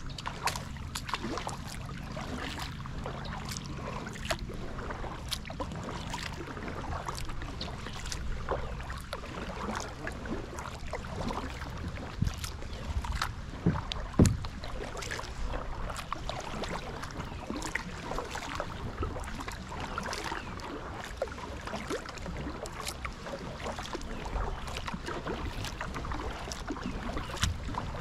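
Kayak paddling on a river: water dripping and trickling off the paddle blades, with a steady run of small splashes and ticks and a few sharper strikes around the middle.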